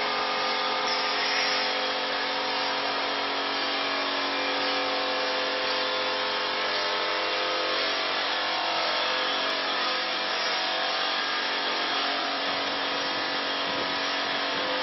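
MR150 carbide band saw blade sharpener running: a steady motor whine of several held tones over a dense grinding hiss.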